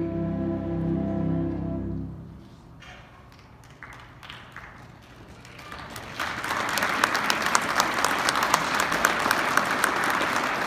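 Concert band holding a final sustained chord that cuts off about two seconds in, followed by scattered claps that build into full audience applause about six seconds in.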